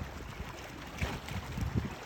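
Wind buffeting the microphone in irregular low rumbles and thumps, over faint sloshing water around a kayak.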